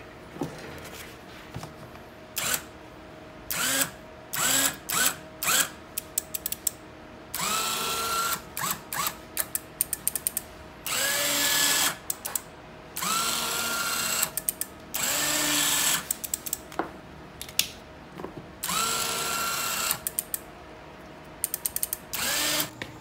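Motorcycle landing gear's electric gear motor running in repeated bursts. Each start is a whine that rises in pitch and then holds. Several runs last about a second, with short blips between them and a quick cluster near the end. It is working normally.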